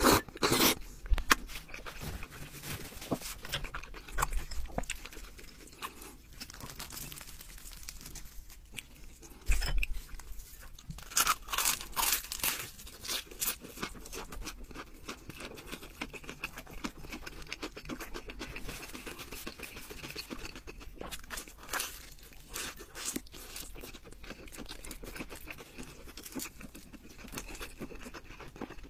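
Close-up eating sounds: crunchy bites into a fried meat cutlet and chewing, a long run of short, sharp crackles and smacks.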